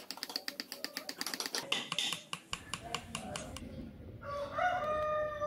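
A small spring-steel carving chisel cutting into hardwood in quick short strokes, heard as rapid ticking scrapes several times a second for the first two and a half seconds. About four seconds in, a held pitched tone comes in.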